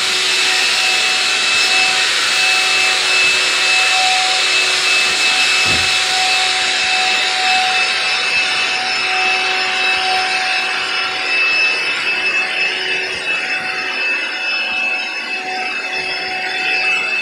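Handheld coating sprayer running steadily: a motor whine with several steady tones over the hiss of the spray. The hiss thins a little in the last few seconds.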